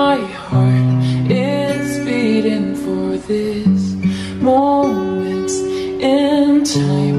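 Background pop song: acoustic guitar accompaniment under a sung melody with held, wavering notes.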